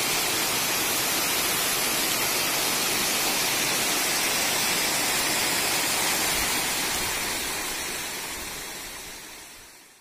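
A waterfall: water rushing steadily over rocks, a constant hiss that fades away over the last few seconds.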